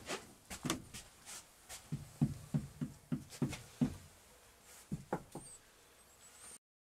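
Irregular series of light knocks and thuds as wooden van furniture is handled and fitted, cutting off abruptly near the end.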